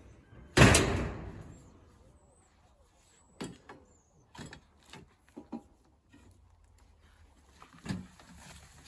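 A sudden loud bang about half a second in that rings on and dies away over about a second, followed by a scattering of light knocks and clicks.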